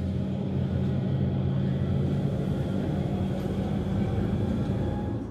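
Electric rack railway railcar running: a steady low rumble with a hum of several low tones.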